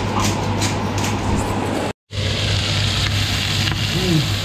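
Cubes of pork belly sizzling in a frying pan, a steady hiss that starts after a cut about two seconds in. Before it comes a run of light ticks while the raw meat is seasoned, and a steady low hum runs under both.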